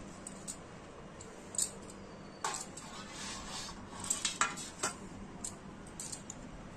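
Betel leaves being handled and laid on a steel plate: scattered light rustles and clicks against the metal.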